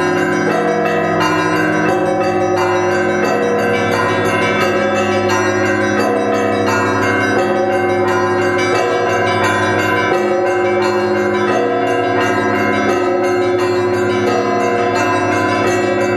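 Russian Orthodox monastery bells ringing together in a continuous peal: many bells sound at once, with a deeper bell struck about every second and a half over the ringing of the others.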